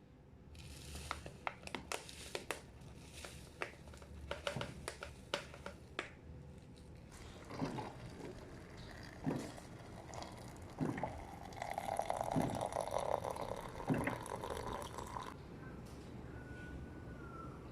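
Water being poured into a French press coffee maker, after several seconds of light clicks and taps. The pour is strongest in the second half and stops a couple of seconds before the end.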